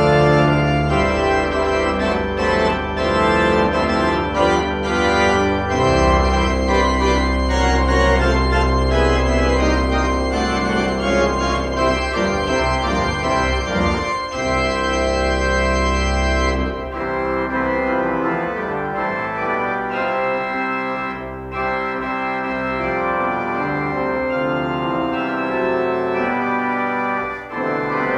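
Pipe organ played on manuals and pedals: full sustained chords over deep pedal notes, until the deep bass drops out a bit past halfway and the playing turns lighter.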